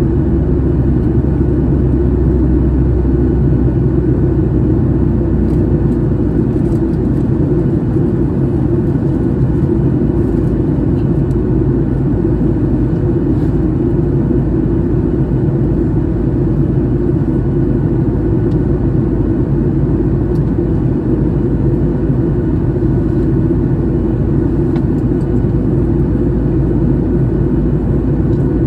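Steady, loud low rumble of a Boeing 737's jet engines and airflow, heard from inside the cabin.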